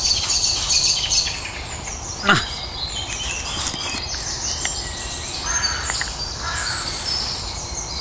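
Birds singing and calling in woodland over a steady background hiss, with many short high notes throughout and a few lower, harsher calls past the middle. A short falling sound comes about two seconds in.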